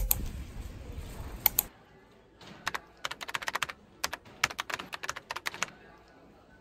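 Background music fades out in the first second or two. Then Japanese glass wind chimes (furin) clink in a quick run of light, sharp ticks for about three seconds.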